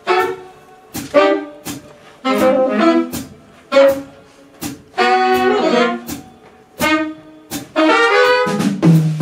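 Jazz horn section of trumpet, saxophones and trombone playing short, stop-start ensemble chords with gaps between them, punctuated by sharp drum hits. Near the end the sound fills out with lower, continuous notes.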